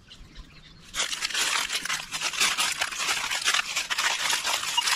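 Dry fallen leaf litter crunching and crackling under a person's footsteps and a swept metal detector coil. It starts about a second in and goes on densely from there.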